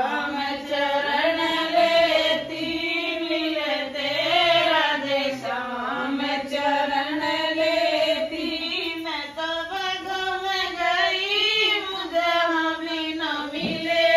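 A group of women singing a devotional folk song to the household deities (devtao ke geet) together on one continuous, gently rising and falling melody.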